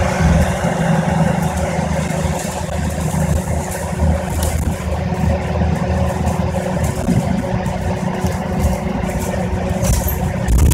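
City bus's engine and road noise heard from inside the moving bus: a steady low drone with a constant hum and scattered small rattles.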